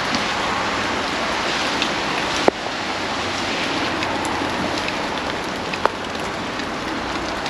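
Steady rain falling in an even hiss. A couple of sharp single ticks stand out, the loudest about two and a half seconds in and another near six seconds.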